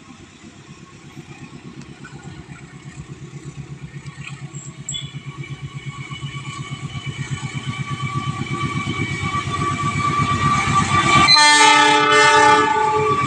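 An approaching train: a low rumble with a fast, even pulse grows steadily louder. About eleven seconds in, the locomotive's horn sounds one loud blast of about two seconds.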